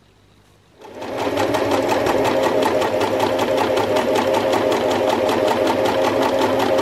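Electric domestic sewing machine starting up about a second in and then running steadily, stitching a seam with a fast, even mechanical clatter.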